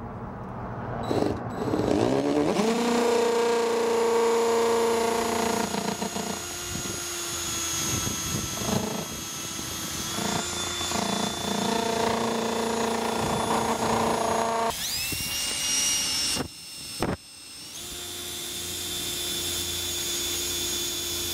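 Power drill with a twist bit drilling through the plastic hinge of a trash can lid: the motor whines steadily in several runs with short pauses. About fifteen seconds in the whine rises in pitch, it stops briefly, and then it runs again.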